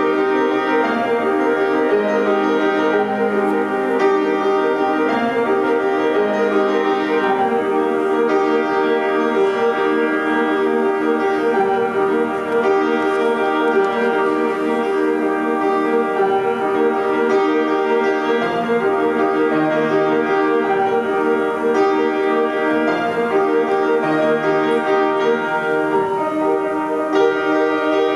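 Grand piano playing a continuous piece at a steady level, with many notes held and overlapping.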